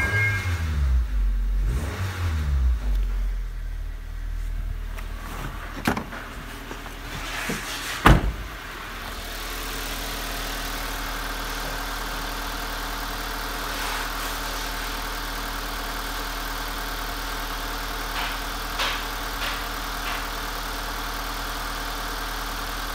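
Honda Civic D16V1 1.6-litre SOHC VTEC inline-four petrol engine running at fast idle, around 2000 rpm, just after starting, its pitch rising and falling in the first few seconds. There are two sharp knocks, about six and eight seconds in. After these it settles into a steady, even idle heard close to the open engine bay.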